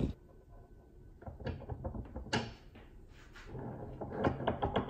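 A thump as the camera is set down, then scattered light clunks and clicks, denser in the second half, as a power steering box clamped in a bench vise is handled and its pitman arm rocked to check it for play.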